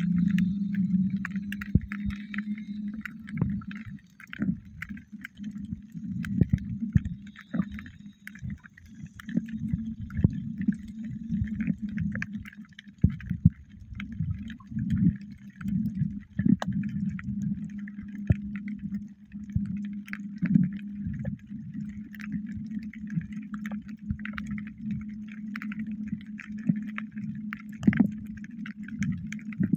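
Muffled underwater water noise with a steady low hum and many irregular clicks and gurgles.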